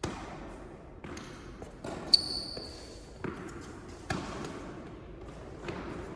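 Tennis balls being struck by rackets and bouncing on an indoor court in a rally, sharp pops roughly once a second with echo from the hall. The loudest hit, about two seconds in, carries a brief high ring.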